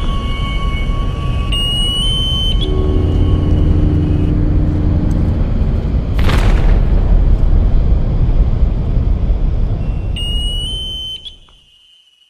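Collage of man-made ocean noise: a continuous low rumble of ship engines, a high electronic ping that rises and then holds, sounding twice, and a single blast about six seconds in. The noise fades out shortly before the end.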